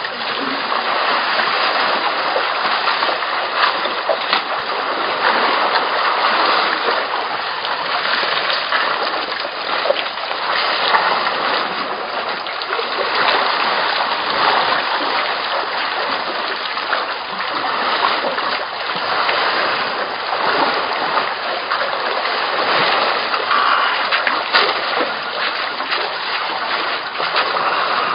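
Continuous splashing and sloshing of water as a herd of African elephants drinks with their trunks and wades at the edge of a waterhole.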